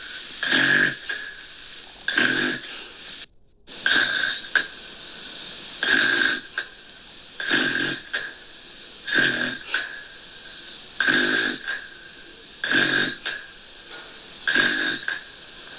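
Gentle snoring: a short snore about every two seconds, nine in a steady, even rhythm over a faint hiss. The hiss cuts out briefly about three seconds in.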